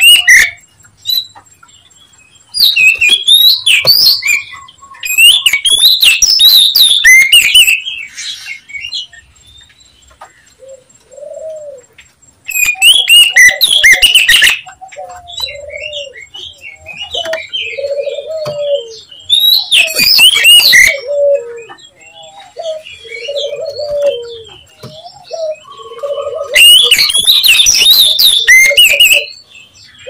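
Oriental magpie-robin (kacer) singing: several loud bursts of fast, varied, high-pitched song, each lasting one to three seconds, with lower short notes in the gaps between them.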